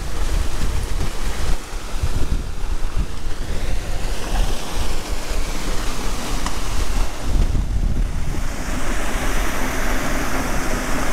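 Strong wind buffeting the microphone over a steady rushing noise.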